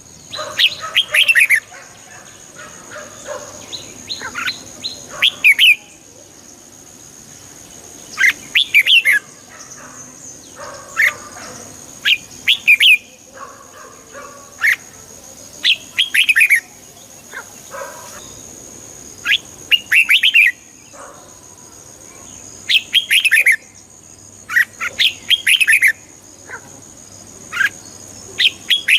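Red-whiskered bulbul singing: short, bright, warbled phrases repeated every one to three seconds, with a faint steady high-pitched whine behind them.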